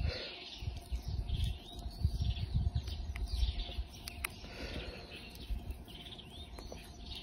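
Birds chirping again and again, with low thumps and rumbling underneath.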